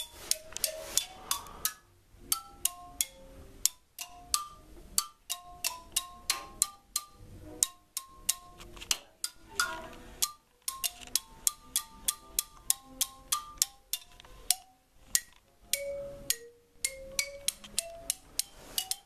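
Marimba played with mallets: a quick stream of struck wooden-bar notes in runs and repeated figures, several a second, with a few brief breaks.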